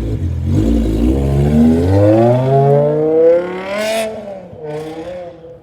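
BMW M6's 5.0-litre V10 engine accelerating hard as the car pulls away, its pitch climbing steadily before dropping at a shift about four seconds in with a sharp crackle. A second burst follows, and the sound fades as the car drives off.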